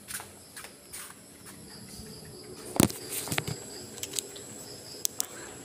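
Faint, steady high-pitched chirring of insects, likely crickets, with scattered sharp clicks and knocks of things being handled. The loudest click comes a little under halfway through, followed by a few quick ones and two more near the end.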